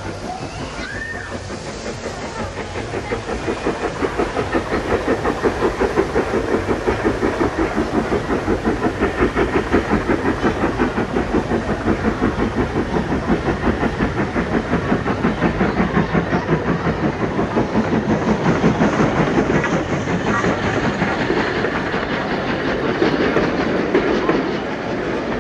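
Model train running along its layout, its wheels and motor clicking in a quick, even rhythm that grows louder a few seconds in, as if it is passing close by.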